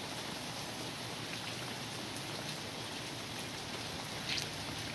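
Very wet snow, close to rain, falling steadily as an even hiss on the driveway and trees. One short, brighter sound stands out about four seconds in.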